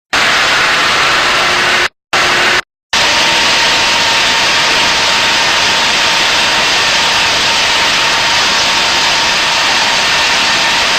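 Diamond wire saw running through stone, a loud steady hissing noise with a faint steady whine from about three seconds in. The sound drops out twice, briefly, around two to three seconds in.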